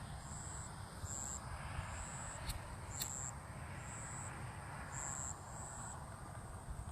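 Insects chirping in short, high-pitched pulses about once a second, over a steady low rumble, with two faint clicks midway.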